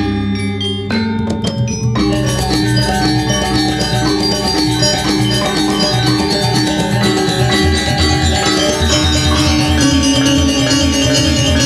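Balinese gong gamelan: bronze metallophones and kettle gongs struck with mallets, with drum. For about the first two seconds only a few strokes ring over a steady low gong hum, then the full ensemble comes in with dense, fast strokes.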